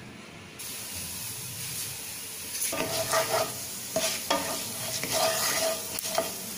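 Fennel seeds frying in hot oil in a granite-coated non-stick pan: a steady sizzle starts about half a second in, and from a little before halfway a utensil stirs them, scraping across the pan in several strokes. This is the tempering step, with the seeds frying until they splutter.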